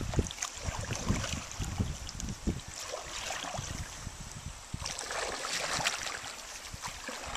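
Canoe paddle strokes through lily pads and reeds: the blade splashing and dripping, with irregular low knocks.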